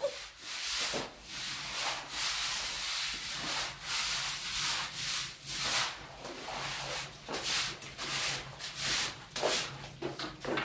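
A yard-cleaning tool scraping over the ground in repeated strokes, about one or two a second.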